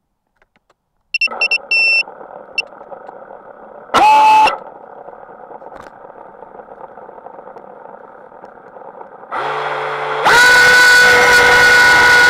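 FPV racing quadcopter with 2207 2600 kV brushless motors on a 4S battery: a few short high beeps about a second in, then the motors spin at a low steady hum after arming, with a brief throttle blip about four seconds in. About ten seconds in the throttle comes up and the motors give a loud steady whine as the quad takes off.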